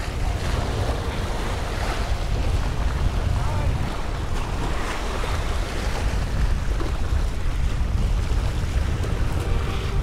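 Small waves washing and splashing against the stone blocks of a rock jetty, with wind buffeting the microphone as a steady low rumble.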